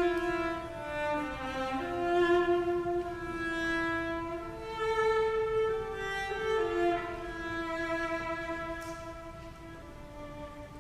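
Solo cello playing a slow melody of long bowed notes with vibrato, growing softer near the end.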